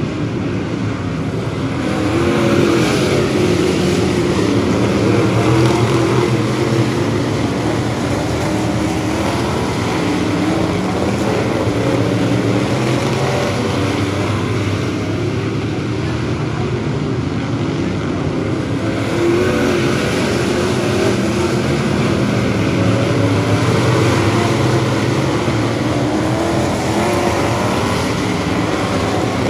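A pack of bomber-class stock cars racing around the oval, their engines running together with wavering pitch. The sound swells twice, a couple of seconds in and again about two-thirds of the way through, as the field passes close by.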